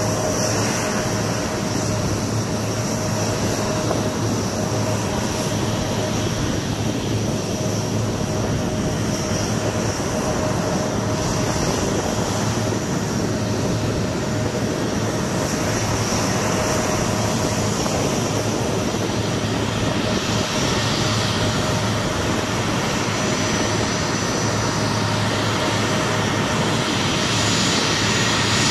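A-10 Thunderbolt II's twin General Electric TF34 turbofans running at taxi power as the jet rolls toward the listener: a steady jet rush with a high whine, growing a little louder near the end.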